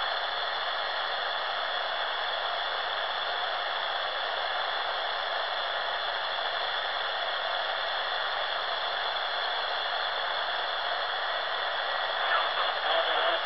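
Steady static hiss from a Silvercrest SWED 250 A1 shortwave receiver tuned to 14.215 MHz in FM mode, with no voice coming through between transmissions. A few faint steady high tones sit in the hiss.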